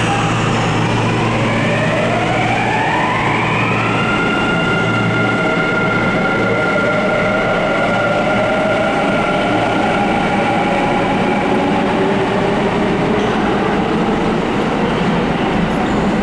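Kintetsu electric train pulling out of an underground station. Its traction motors give a whine of several tones that rise in pitch together for about four seconds, then hold steady and fade, over a steady rumble of running noise.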